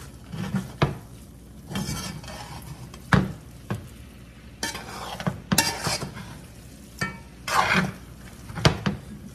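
Metal spoon stirring and scraping spinach rice around a stainless steel pot on the stove, with light sizzling from the pot. A few sharp clinks where the spoon knocks against the pot.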